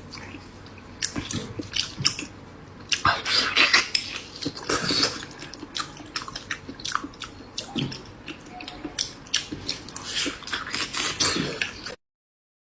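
Close-miked eating sounds: a person chewing with wet smacks, squelches and sharp clicks at an irregular pace, stopping abruptly near the end.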